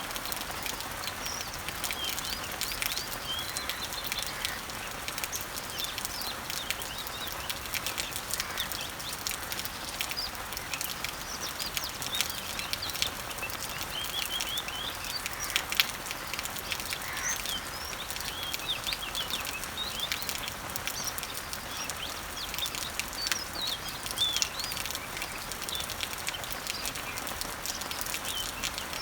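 Steady rain pattering on leaves, with birds chirping throughout in short, quick high notes.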